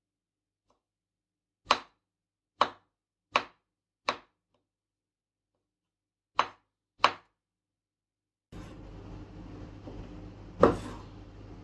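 Kitchen knife slicing mushrooms on a wooden cutting board: six sharp chops, four and then two, with dead silence between. About eight and a half seconds in, a steady low hum comes in, with one louder knock near the end as the knife scrapes the slices over the board.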